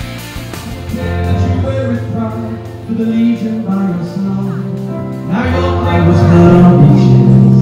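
Music with a singing voice over held notes; it gets louder about five and a half seconds in.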